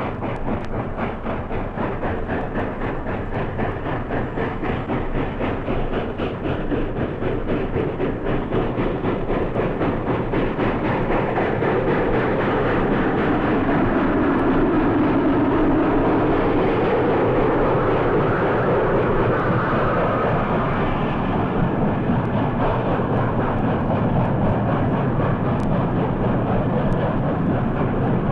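Steam locomotive working hard, its exhaust beats coming rapidly, one after another. It grows louder through the first half and then holds steady, close and loud.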